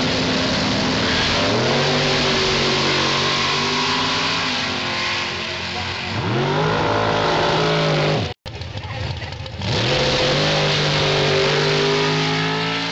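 Drag racing engines at full throttle down the strip, their pitch climbing, dropping back and climbing again as the gears change. The sound cuts out briefly about eight seconds in, then another run comes in.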